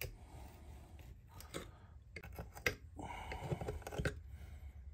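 Small wood gouge cutting and scraping out a trigger-plate inlet in a rifle stock: a few faint, separate clicks and scrapes of the blade on wood, with a longer scrape about three seconds in.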